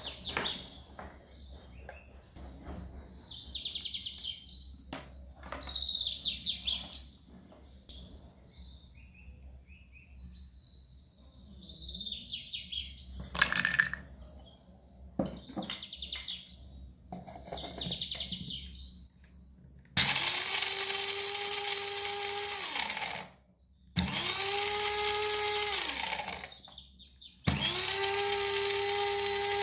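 Electric kitchen blender run in three pulses, each a steady motor whine that winds down in pitch when switched off; the last pulse runs on to the end. Before the pulses come scattered light clicks and clinks of kitchen handling.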